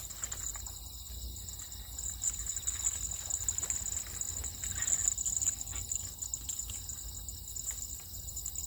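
Crickets trilling steadily in one high pitch, with scattered small clicks and rustles from an angler moving among the rods.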